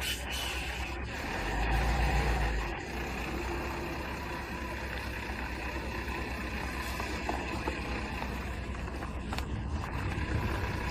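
Diesel engine of a Dongfeng tractor-trailer cement tanker running as the truck moves slowly along a rough dirt road: a steady low rumble with a louder low swell about a second and a half in.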